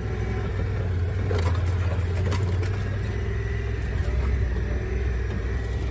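Off-road vehicle driving along a rough farm track: a steady low engine rumble, with a faint whine and scattered knocks and rattles from bumps.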